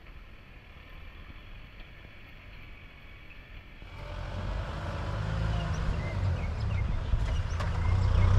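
Heavy machine engine running with a low steady rumble, much louder from about four seconds in, with a few short squeaks and knocks over it.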